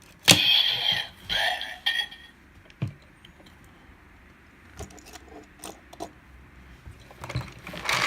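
Kamen Rider Build Driver toy belt playing its electronic sound effects as a Bat Fullbottle is plugged in: two short loud bursts in the first two seconds. Quieter plastic clicks and handling follow, and the belt sounds again loudly near the end.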